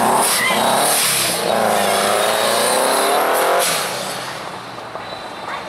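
Hot rod race car engine accelerating hard, revving up, changing gear about a second in and revving up again, then easing off and dropping quieter a little after halfway.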